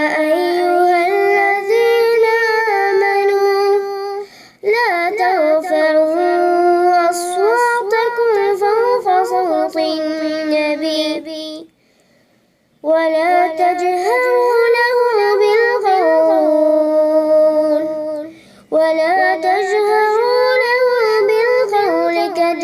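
A child's voice reciting the Quran in Arabic in melodic tajweed: long phrases of held notes that glide up and down, with short breath pauses about four, twelve and eighteen seconds in.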